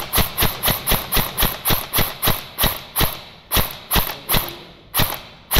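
Airsoft rifle firing a rapid string of single shots, about three to four a second, with a short pause near the end before one last shot.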